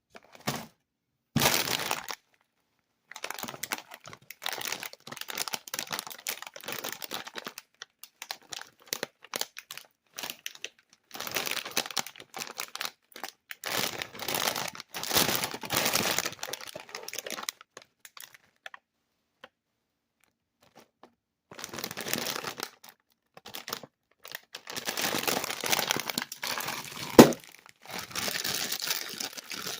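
Snack bag of fried pork skins crinkling and rustling as it is handled and opened, in irregular bursts with silent pauses, and one sharp crack near the end.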